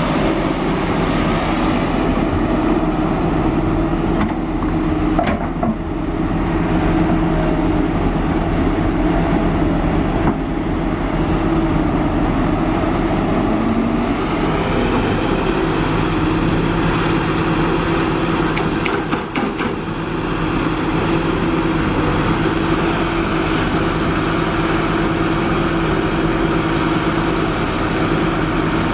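Kobelco SK350 excavator's diesel engine running steadily while working, with a few brief knocks and clatters.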